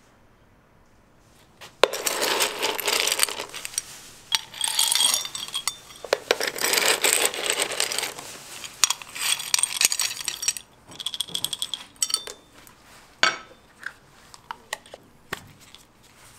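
Small hard candies clattering and clinking against each other in several dense rattling runs, then a few scattered clicks near the end.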